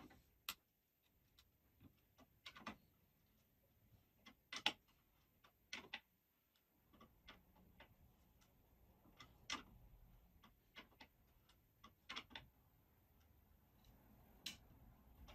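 Faint, irregular clicks of a steel Allen key turning a socket-head bolt and catching against the bolt and its washer, with the loudest click a little under five seconds in.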